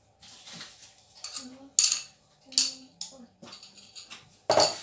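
A metal spoon clinking and scraping against a small glass bowl as sauce is spooned out, with several separate sharp clinks. Near the end comes a louder knock of glassware.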